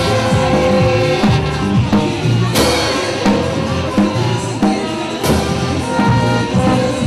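Street brass band playing a march with clarinet, saxophones and horn over a bass-drum beat. Cymbal crashes come about two and a half seconds apart.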